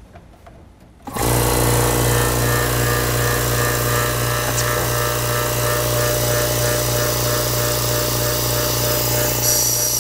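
Werther C120/24 'quiet' air compressor switched on about a second in, then running steadily with a low, even hum; about 59 decibels.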